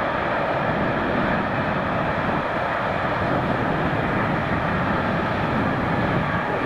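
Train crossing a high railway bridge, heard as a steady rumble and hiss.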